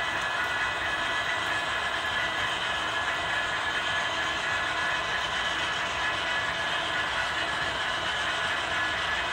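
Model train running on the layout: a steady rolling noise with a faint whine, with no pauses or single knocks.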